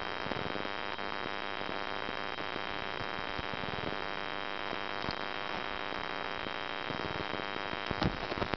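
Steady hiss with a thin high whine running through it, and a few soft knocks near the end.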